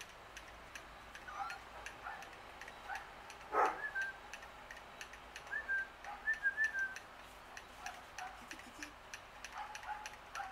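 Short whistled bird chirps, with a quick run of notes around six seconds in and one louder, downward-sweeping call about three and a half seconds in, over a steady fast ticking.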